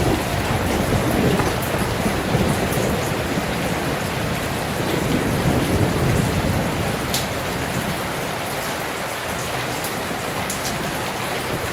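Steady heavy rain, heard from indoors, with scattered sharp drip ticks and low rumbling swells through the first half that ease off later.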